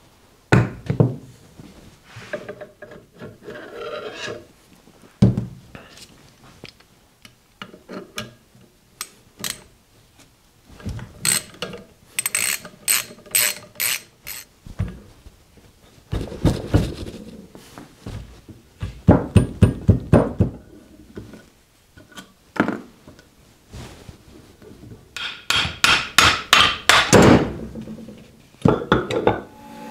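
Hand tools at work on a steel assembly on a wooden bench: a socket ratchet clicking in quick runs, with metal parts and tools knocking and clattering down, and hammer taps near the end.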